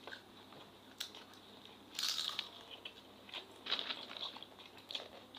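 Eating sounds: crunchy crackers (keropok) being bitten and chewed, in a few short crunches, the loudest about two seconds in.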